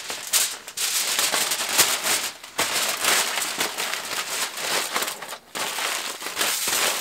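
Aluminum foil crinkling and crumpling as it is folded and scrunched tightly around a potato by hand, with brief pauses about two and a half and five and a half seconds in.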